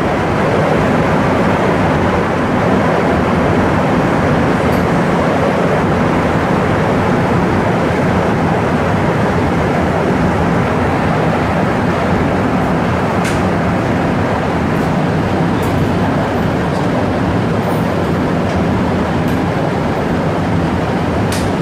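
Steady running noise of a rubber-tyred Montréal Métro train, heard from inside the passenger car as it travels.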